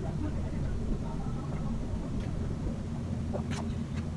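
A steady low rumble, with a couple of short clicks from a person chewing food about three and a half seconds in.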